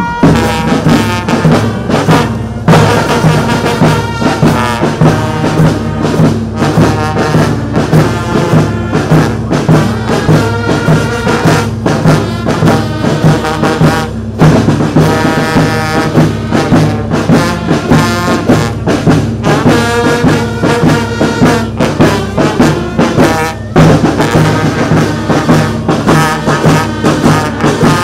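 Brass band playing a national anthem, trombones and trumpets carrying the melody over a steady low sustained tone, with some drum.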